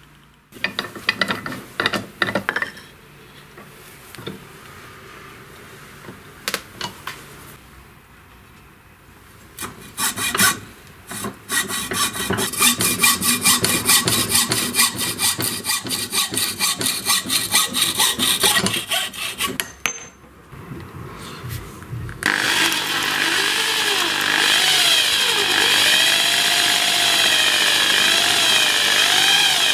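A few knocks, then a hacksaw cutting through an old wooden hammer handle close to the head in quick back-and-forth strokes. About two-thirds of the way in, an electric drill starts boring out the wood left in the hammer head's eye and runs steadily, its whine wavering under load.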